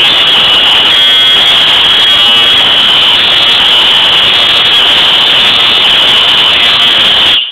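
Fire alarm horn sounding a continuous loud, harsh buzzing tone, cutting off abruptly near the end.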